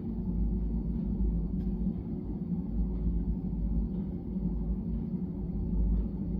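Blizzard wind buffeting the microphone: a steady low rumble that swells and dips unevenly.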